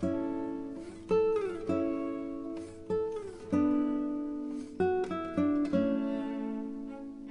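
Background music: acoustic guitar plucking single notes and chords, each fading out, with a few sliding notes.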